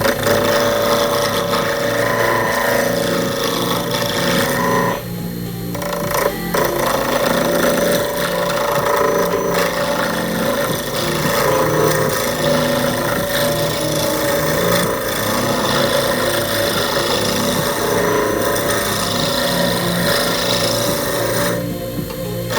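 Power tool working wood, with a steady hum and continuous scraping and rubbing, briefly easing off about five seconds in and again near the end.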